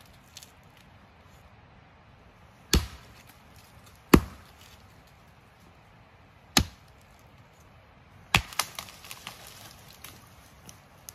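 An axe biting into a small standing tree trunk with four sharp, separate chops a second or two apart. A run of lighter crackling follows the last chop.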